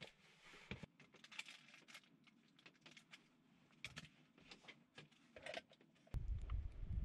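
Faint small clicks and rustles of plastic stove parts being taken out of a Jetboil cup and handled, with a packet crinkling near the end. About six seconds in, wind starts rumbling loudly on the microphone.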